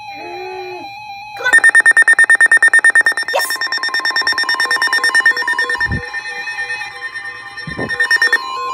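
Weather alert radio alarm going off for a Special Marine Warning. A loud, rapid pulsing beep starts about a second and a half in and lasts about seven seconds. Near the end it gives way to the steady 1050 Hz NOAA Weather Radio warning tone that comes before the spoken message.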